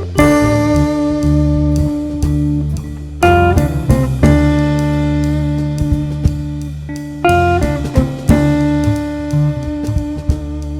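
Background music led by guitar: chords are struck and left ringing, with a new chord about every one to three seconds.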